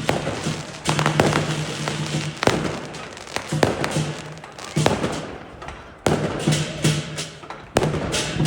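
Aerial fireworks going off in a string of about six bangs a second or so apart, each followed by a fading crackle.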